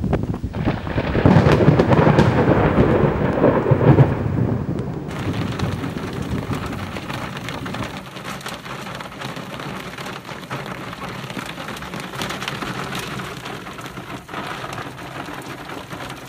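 Thunder rumbling loudly for the first few seconds. Then a steady hiss of falling rain with scattered drop ticks, slowly fading.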